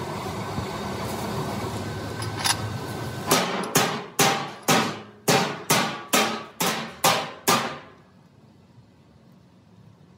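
A hammer striking steel about ten times in a row, roughly two blows a second, each blow ringing briefly. A steady mechanical hum runs under the first part and drops away after the last blow.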